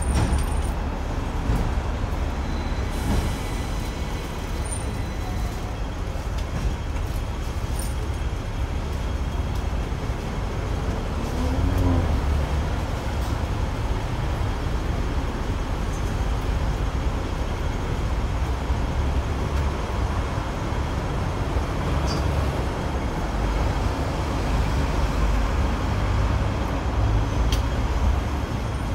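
Hong Kong double-decker electric tram running along the street, a steady low rumble mixed with the noise of road traffic, swelling briefly about twelve seconds in.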